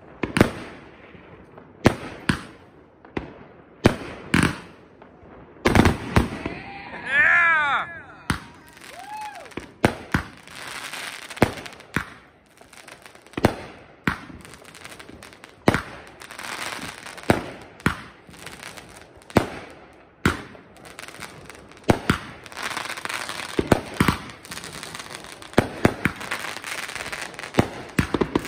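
Aerial fireworks bursting overhead, a sharp bang every second or two, with a thick crackling of sparkling stars between the bangs in the second half.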